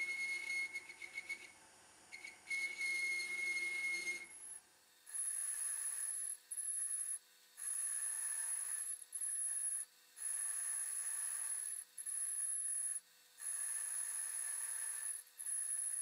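Metal lathe running with a single-point tool, set on the top slide at the taper angle, cutting metal as the top slide is fed by hand. It starts with a steady whistling tone over the motor hum. From about five seconds in the cutting comes in strokes about a second long with brief pauses, each with a high-pitched whine, as the handwheel is turned.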